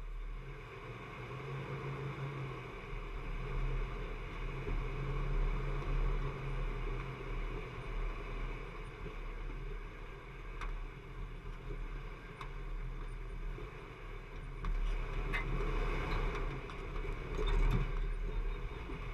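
Jeep engine running steadily at low revs as it crawls over rocky ground, with a few scattered clicks and knocks of rock under the tyres.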